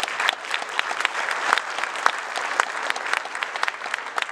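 Audience of several hundred clapping, the applause thinning out near the end.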